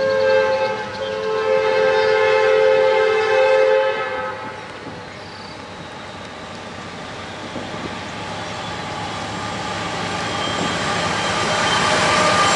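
Diesel freight locomotive horn sounding a chord in several blasts through the first four seconds, at a grade crossing. Then the rumble of the oncoming lead locomotive and its train, growing steadily louder as it nears.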